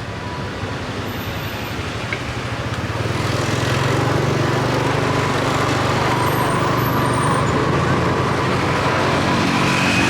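Road traffic with a motor vehicle's engine growing louder about three seconds in, then running steadily close by.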